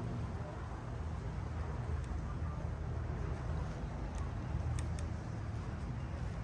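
Wind buffeting the microphone outdoors: a steady low rumble with a rushing noise over it.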